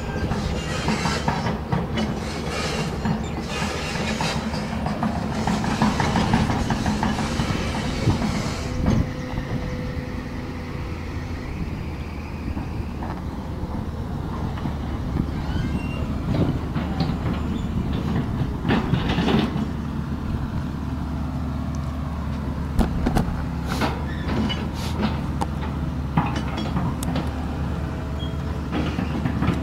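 Diesel engine of an XCMG excavator running steadily under load while it digs and clears brush, with irregular sharp cracks and metallic clanks throughout.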